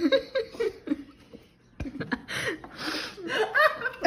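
People laughing: short chuckles and snickers mixed with a breathy, almost silent wheezing laugh, easing off briefly about a second and a half in.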